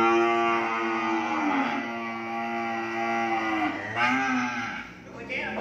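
Cattle mooing: one long moo lasting about three and a half seconds, then a shorter one about four seconds in.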